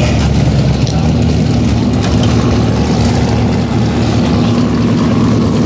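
Car engine idling steadily, a low, even running sound with no revving.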